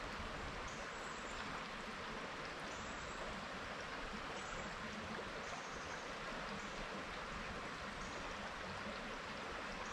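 Mountain stream running steadily, an even rush of flowing water.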